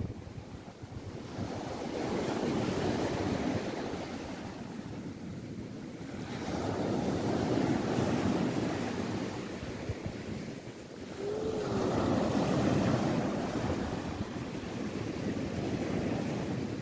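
Small ocean waves breaking and washing up a sandy beach. The surf rises and falls in three long surges, each building to a rush and easing off.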